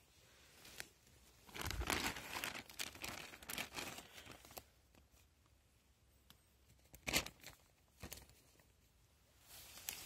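Plastic bag crinkling and rustling as it is handled: a long bout of rustling in the first half, then two short crinkles and a little more rustle near the end.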